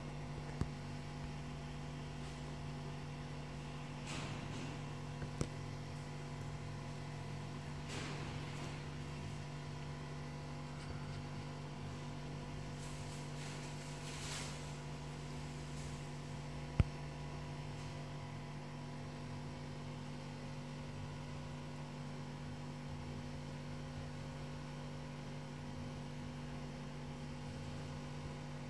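Steady electrical mains hum with several overtones. A few faint brief rustles occur, and one sharp click about seventeen seconds in.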